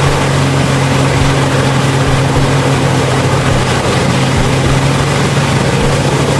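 Heavy shredding machine running steadily: a constant engine drone under a dense, even rush of noise.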